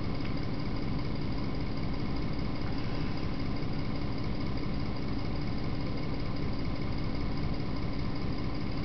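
Steady low electrical hum with hiss, the mains hum and tape noise of an old videotape recording.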